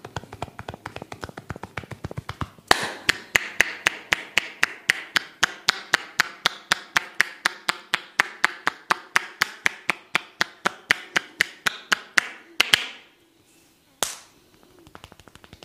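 A barber's hands drumming on a person's head in percussive head massage, a fast even train of clapping taps at about four a second. The taps get louder about three seconds in, stop just before the end, and one more single tap follows.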